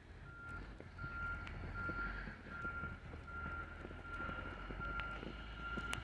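A motor grader's backup alarm beeping in a steady single tone, about once every 0.8 s, as the grader reverses while clearing snow, with a low engine rumble underneath.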